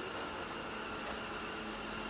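360 Smart Life S9 robot vacuum running: a steady motor and suction-fan whir with a faint steady tone in it.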